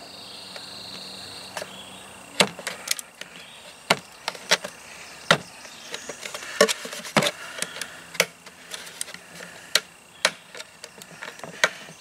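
Knife cutting and picking at the edge of a hole in a red plastic coffee can while the can is handled: a string of irregular sharp clicks and snaps.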